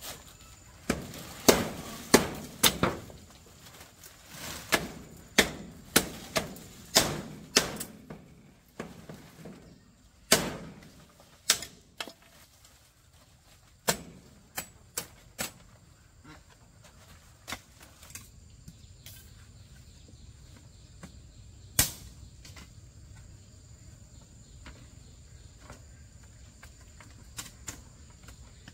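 A run of sharp knocks, spaced about half a second to a second apart, through the first twelve seconds or so, then scattered single knocks, the loudest about 22 seconds in.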